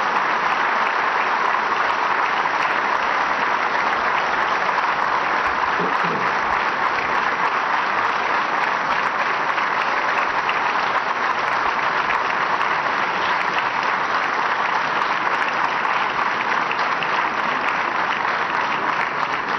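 Large audience applauding, a dense, even clapping that holds steady throughout.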